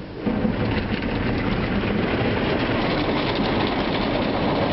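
Automatic car wash starting up around the car, heard from inside the cabin: a sudden loud rush of washing machinery and spray that sets in about a quarter second in and then holds steady, with a dense crackle over a low rumble.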